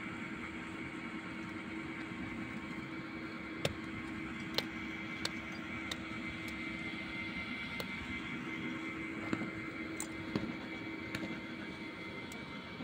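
A steady motor hum holding one constant pitch, with about ten sharp clicks and knocks scattered through it.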